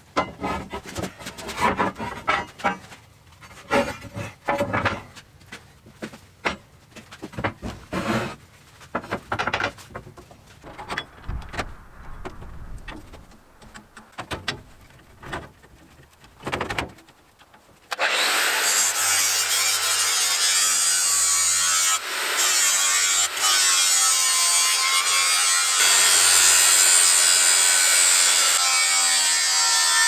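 Irregular knocks and clatter of steel plate and a bar clamp being handled and tightened, then, about 18 seconds in, an angle grinder starts and grinds the edge of a steel plate steadily to the end.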